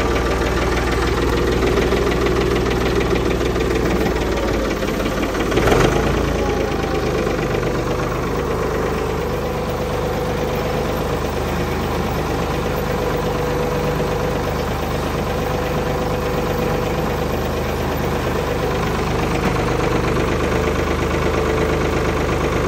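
Old Ford tractor engine idling steadily, with one brief louder sound about six seconds in.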